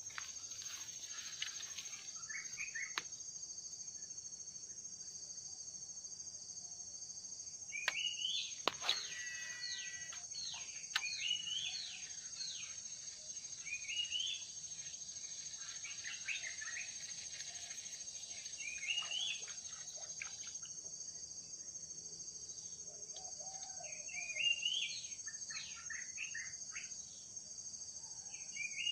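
Wild birds calling in short, repeated chirpy phrases over a steady, unbroken high-pitched insect drone. A single sharp click sounds a little before nine seconds in.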